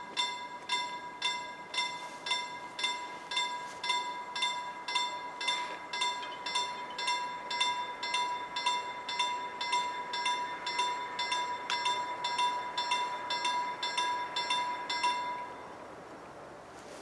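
Level crossing warning bell ringing in steady, evenly spaced strikes, about one and a half a second, as the red lights flash and the barriers lower: the warning that a train is approaching. It stops suddenly about fifteen seconds in, once the barriers are fully down.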